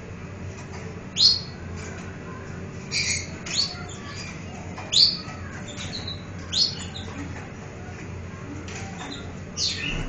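Caged canary giving short, high chirps, about six scattered singly across ten seconds, some sweeping quickly upward.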